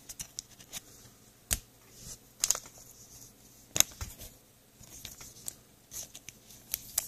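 2022 Bowman's Best baseball cards being sorted and flicked through in the hands: dry slides and scrapes of card against card, with sharp card-edge snaps, the loudest about one and a half seconds in and again near four seconds.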